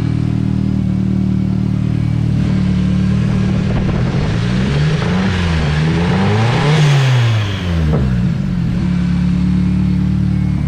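Turbocharged KA24DE four-cylinder in a Nissan 240SX S13 idling on a cold start, revved up and down twice in the middle before settling back to idle. It is misfiring and running rich on fouled spark plugs.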